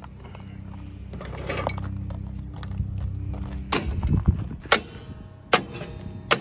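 Hand tools clicking against metal on a drum-brake assembly as a notched washer is forced over the parking-brake lever's pivot pin. There are four sharp metallic clicks, about one a second, in the second half.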